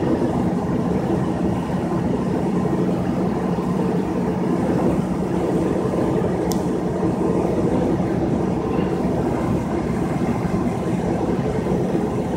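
Steady drone of a semi truck's engine and road noise heard inside the cab while cruising at highway speed, with a single brief high tick about halfway through.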